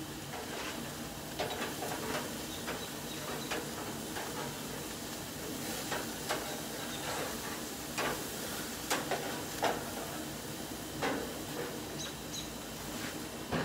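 Burgers sizzling on a gas grill, a steady hiss broken by repeated sharp clicks and scrapes of a metal utensil against the grate.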